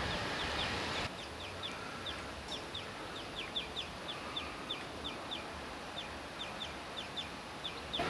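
A small bird chirping with short, high, downward-sliding calls, a few each second and irregularly spaced, over a steady background hiss. The chirps start about a second in.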